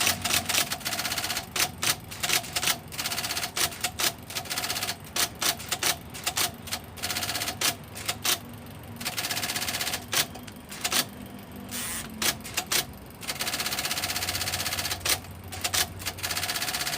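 IBM Selectric III electric typewriter typing: quick, irregular strikes of the typeball over the steady hum of its running motor. Near the end the strikes thin out, leaving mostly the motor hum.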